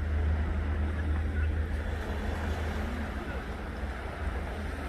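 Steady low wind rumble on the microphone over the wash of sea surf.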